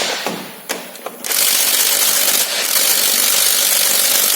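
Pneumatic impact wrench hammering on a tight wheel nut, starting a steady run about a second and a half in. The nut does not come loose.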